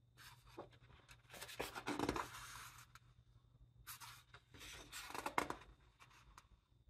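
Pages of a large hardcover art book turned by hand: paper rustling and sliding in two page turns, one starting a little over a second in and another about four seconds in, with small crisp clicks of the paper.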